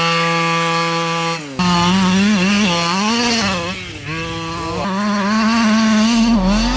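Losi DBXL's 23cc two-stroke gas engine running at high revs under throttle. It holds a steady pitch for about a second and a half, cuts off briefly, then rises and falls with the throttle, dipping near the middle and again near the end.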